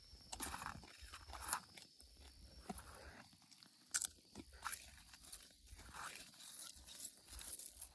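Irregular crunching, a dozen or so short crunches at uneven spacing.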